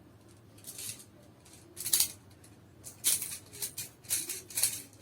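E&C Glock 19X green-gas blowback airsoft pistol being test-fired: sharp snapping shots with a hiss of gas. Two single shots come in the first two seconds, and a quicker irregular string starts about three seconds in.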